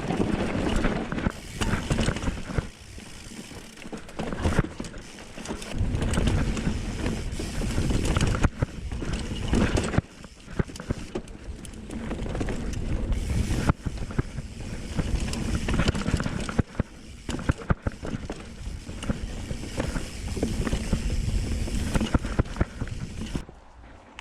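Mountain bike riding fast down a dirt trail: tyres rumbling over the ground, chain and frame rattling with irregular knocks over bumps, and wind on the microphone. It drops suddenly quieter near the end.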